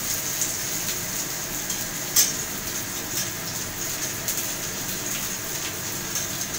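Potatoes, sliced onion and garlic sizzling steadily as they fry in oil in a pan, with one sharp tick about two seconds in.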